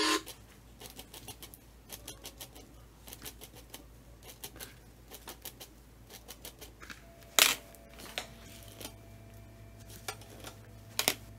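Light, irregular clicking of tweezers plucking hair along a lace wig's hairline, with a louder sharp click about seven seconds in and a couple more near the end.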